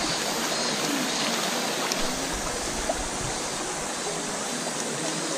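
Shallow river water rushing steadily over rocks, close to the water, with a couple of faint clicks about two and three seconds in.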